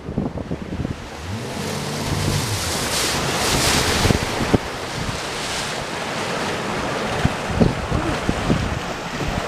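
Wind buffeting the microphone over rushing, splashing water as an elephant charges through shallow floodwater toward a small aluminium boat. A low droning tone rises and falls once about two seconds in, and sharp thumps of water and wind gusts come near the end.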